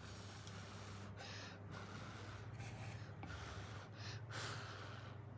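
A person slurping thick udon noodles: three short sucking, hissing slurps over a faint steady low hum.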